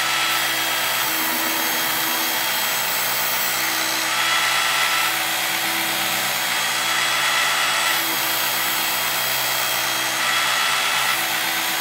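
Work Sharp powered belt knife sharpener running steadily, its small electric motor driving the thin abrasive belt at an even pitch while a knife blade is drawn through the 20-degree guides on alternating sides. The level swells slightly a few times as the blade passes.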